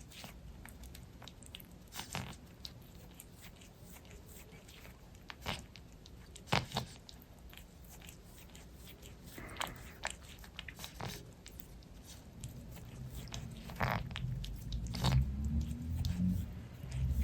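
Cat grooming herself, licking and nibbling at her fur with scattered short, wet clicks. A low rumble builds near the end.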